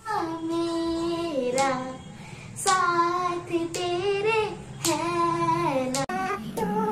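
A girl singing a song unaccompanied, in three phrases of long held notes with short breaks between them.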